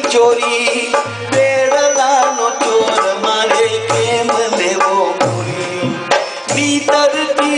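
Garba devotional music: a dholak drum plays a rhythm with deep bass strokes every second or two, under a sustained melodic line and a held drone. The music drops out briefly about six seconds in.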